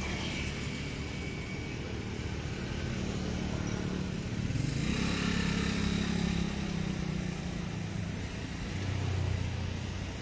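Engine noise of passing road traffic: one vehicle goes by loudest around the middle, and another engine hum swells near the end.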